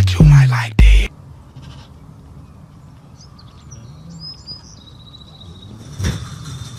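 Music that cuts off about a second in, followed by a quiet outdoor stretch with faint, short, high chirps. Near the end comes a brief brushing thump as a tiger's fur rubs against the camera.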